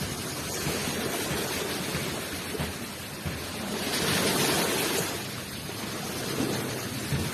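Ocean surf washing onto a shore, a steady rush of water with one wave swelling louder about four seconds in and falling away.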